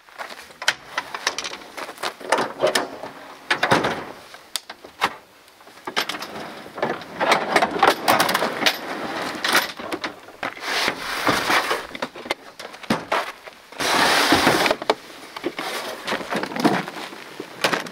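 Truck-bed gear being handled: the tailgate dropping, a wooden pull-out kitchen sliding out on its rails and plastic storage bins being shifted, heard as a string of clunks, knocks and scrapes, with a longer scraping slide about fourteen seconds in.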